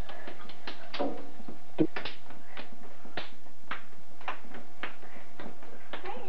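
Children clapping hands together in a rhythmic clapping game, about two sharp claps a second.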